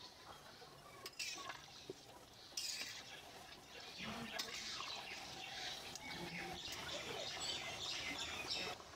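Watery mutton curry gravy bubbling and simmering in the pot, with a spatula stirring it; faint, with a few clicks early on and the bubbling growing busier from about three seconds in.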